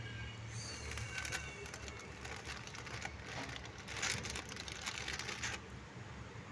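Passenger express train pulling slowly out of a station, heard from on board: coaches rattling and wheels clicking and knocking over the track, with a rush of hissing noise for a few seconds in the middle.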